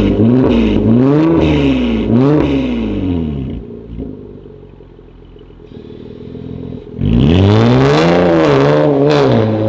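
Toyota Camry XV70's 3.5-litre V6 through a full straight-through exhaust that keeps only the catalytic converters, revved in quick blips about once a second. It drops back to a quieter idle at about three seconds, then is revved hard again at about seven seconds with another run of blips before falling away at the end.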